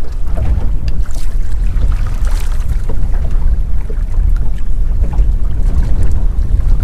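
Wind buffeting the microphone on an open boat at sea, a steady low rumble, with scattered light clicks and knocks.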